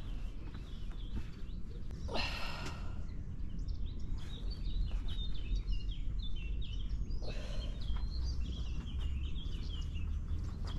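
Outdoor ambience: birds chirping over a steady low rumble, with a brief louder sound about two seconds in and a rise in hiss from about seven seconds in.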